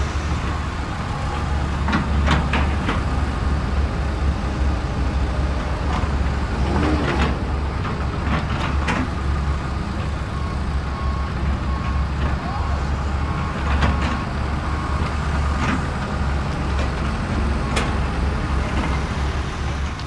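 Steady low rumble like a heavy truck engine running, with a few short hisses and clicks scattered through it.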